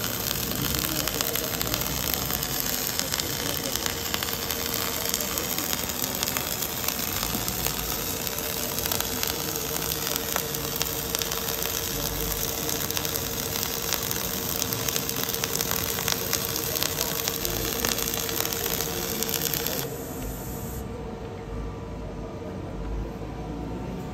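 Wire-fed MIG/MAG welding arc of an EWM automatic pipe welder crackling and hissing steadily as it lays a bead round a steel pipe, with a faint steady hum underneath. The arc cuts off about 20 seconds in, leaving only the lower hum and shop noise.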